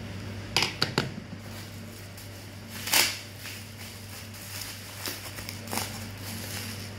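Handling noises: three quick clicks a little after the start, then a short, louder rustle about three seconds in and two softer ones later, over a steady low hum from a fan or air conditioner.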